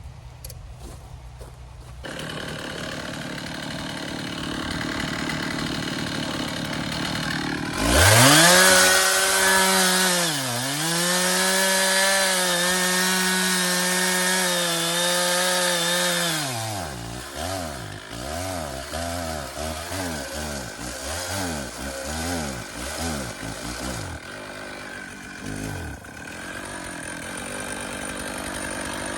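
Stihl 066 two-stroke chainsaw idling, then throttled up to high revs about eight seconds in. The pitch dips briefly, then holds high for several seconds before dropping back to an uneven, wavering idle that dies down near the end.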